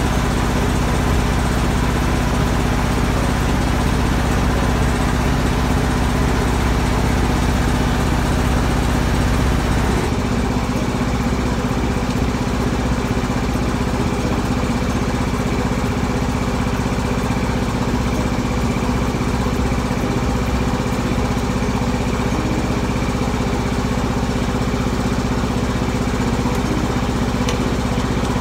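Diesel semi-truck engine idling, a steady low hum; its tone shifts slightly about ten seconds in.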